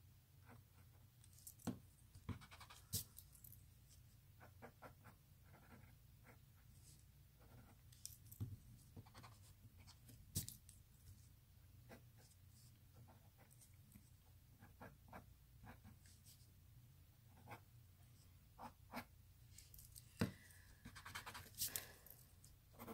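Faint pencil strokes on paper: light scratching with scattered sharper ticks, over near-silent room tone.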